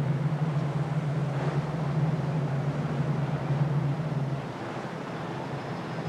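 Motorboat engine running with a steady low drone under the rush of wind and water on the microphone; the drone drops away about two-thirds of the way through.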